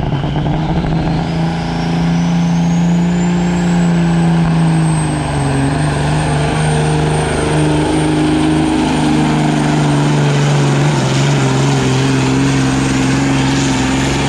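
Semi truck's diesel engine running hard under load while pulling a weight sled, with a high whistle that climbs over the first four seconds and then holds steady.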